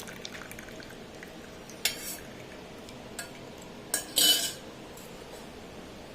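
Metal kitchen utensils clinking against dishes, four short clinks, the last and loudest with a brief ring.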